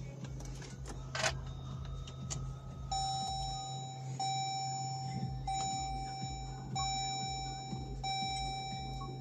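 Car warning chime sounding five times, a clear pitched note about every 1.3 seconds, over a steady low hum, as the Jeep Grand Cherokee's ignition is switched back on to finish erasing fault codes.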